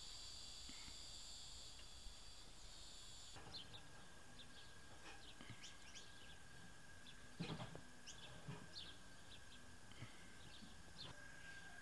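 Faint outdoor ambience. A steady high insect trill runs for the first few seconds, then cuts off. After that come scattered short bird chirps over a thin steady tone, with a soft knock about seven and a half seconds in.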